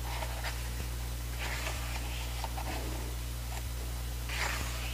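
Glossy pages of a photo book being turned by hand: two soft papery swishes, about a second and a half in and again near the end, over a steady low hum.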